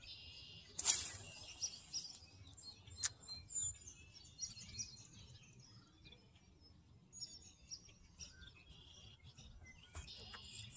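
Small birds chirping and calling over open water, with one sharp click about a second in and a few fainter clicks later.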